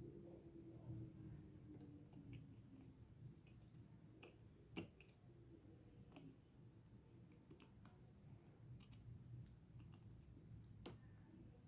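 Faint, scattered small clicks of a Casio BGA-152 watch and small tools being handled during a battery change, the sharpest about five seconds in.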